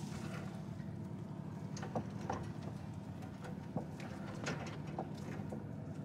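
Light metal clicks and knocks as a wire crab pot and its bait cage are handled, a few scattered taps over a steady low hum.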